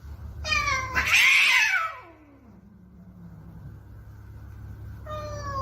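Domestic cat yowling: one long drawn-out call from about half a second in that rises, then slides far down in pitch. A second falling call starts near the end.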